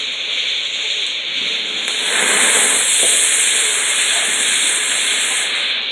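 A firework fountain hissing as it sprays green sparks. The hiss starts with a faint pop about two seconds in and cuts off shortly before the end.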